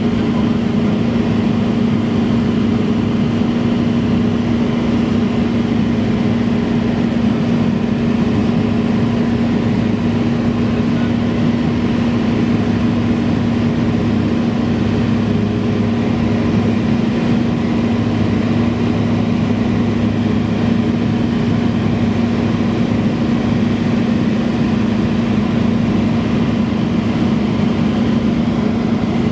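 Cessna 172's piston engine and propeller running with a steady, unchanging drone.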